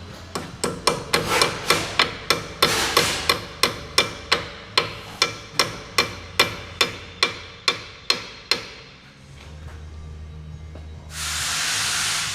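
A run of steady hammer blows on metal, about three or four a second, each ringing briefly. The blows stop about eight and a half seconds in. Near the end comes a hiss lasting about a second.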